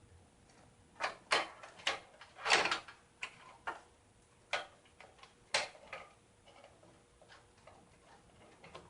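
A graphics card being fitted into a PC case: a string of sharp plastic and metal clicks and knocks with a short scrape as it is pushed into its slot, the clicks coming thick in the first few seconds and then thinning out.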